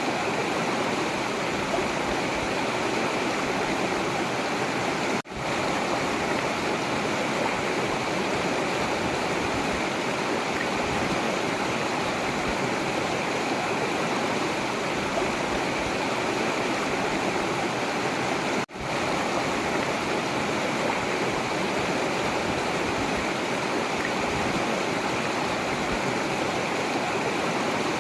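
Forest river flowing in a steady rushing stream. The sound cuts out for an instant twice, about 5 and 19 seconds in.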